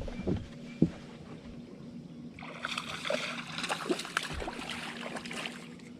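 Splashing and sloshing water for about three seconds, full of small clicks, which is typical of a hooked bass thrashing at the surface beside the boat. A knock comes before it, just under a second in.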